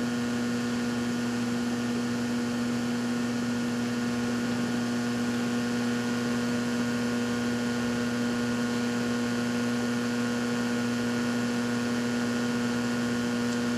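Steady electrical mains hum, a low buzz that holds unchanged throughout.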